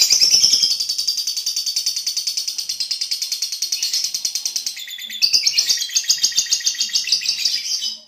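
Lovebird singing a long, unbroken ngekek: a fast, even, high chatter of about ten notes a second. It sags briefly about five seconds in, then picks up again louder.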